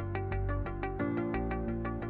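Background music: a steady run of quick, evenly spaced notes, about six a second, over held low chords that change about a second in.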